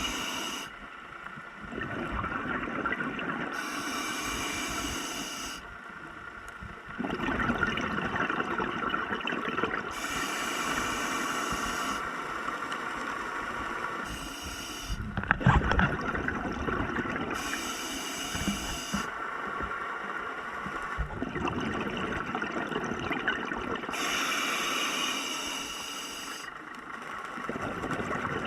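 Scuba diver breathing through a regulator underwater. About every six or seven seconds there is a hissing inhale, and each is followed by a longer gurgling rush of exhaled bubbles. There is one louder brief noise about halfway through.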